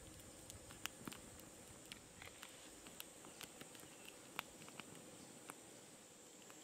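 Near silence: faint outdoor ambience with a steady high hiss and scattered, irregular sharp ticks.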